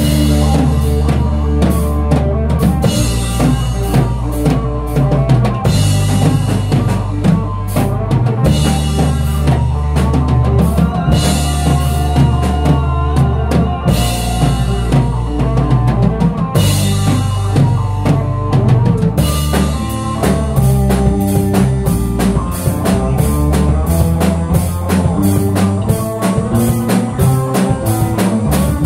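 Live band playing an instrumental passage on drum kit, electric bass and electric guitar, with long held bass notes under a steady drum beat. The drumming gets busier about two-thirds of the way through.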